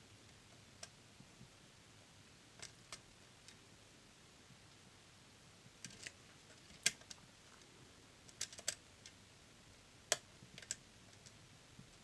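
Lock picks working inside a DOM System D dual-blade pin-tumbler cylinder: sparse, irregular small metallic clicks, a few louder ones about seven and ten seconds in.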